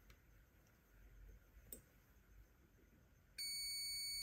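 King'sdun KS-9205A multimeter in continuity mode giving one steady high beep about a second long near the end, as its probes bridge the two contacts of a heat lamp globe: the filament is intact and the globe is good. A faint click comes about halfway through.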